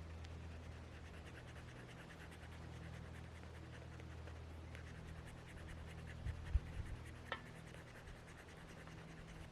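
Faint scratching of a pen on sketchbook paper, over a low steady hum, with a couple of soft thumps and a click a little after halfway.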